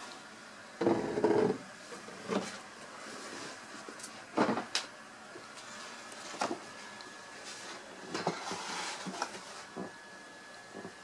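Scattered light knocks and clatter, with a louder half-second burst about a second in and a sharp knock a few seconds later.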